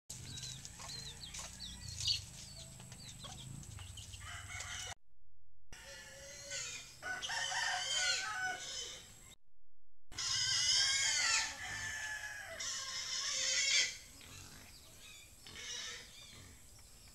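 Roosters crowing several times in the middle, with chickens clucking and high chirps between the crows. The audio drops out briefly twice.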